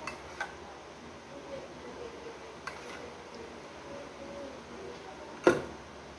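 Soft clicks of cats eating wet food from ceramic plates, then, about five and a half seconds in, one sharp clack of a ceramic plate being knocked against.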